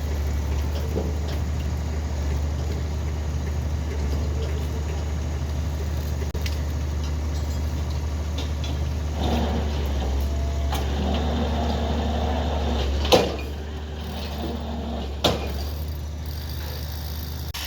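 A heavy machine's engine running steadily with a low drone. Two sharp knocks come near the end, and after the first the drone drops lower.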